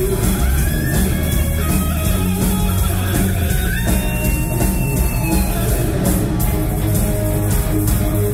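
Live hard rock band playing an instrumental passage: a lead electric guitar line with sliding, bent notes over bass and a steady, driving drum beat.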